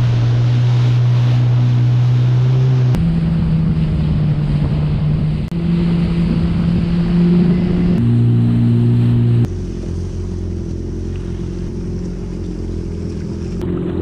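Yamaha WaveRunner personal watercraft engine running steadily at speed, its pitch jumping to a new steady note several times as short clips are spliced together. About nine and a half seconds in it drops to a lower, quieter running note as the craft slows.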